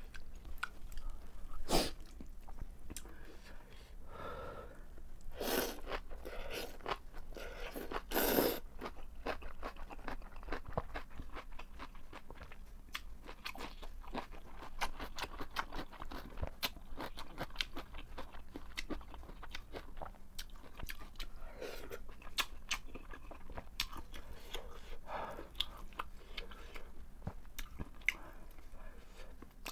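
Close-miked eating sounds: thin wheat noodles slurped in three loud drawn-in bursts in the first nine seconds, then steady chewing with many small wet clicks and crunches.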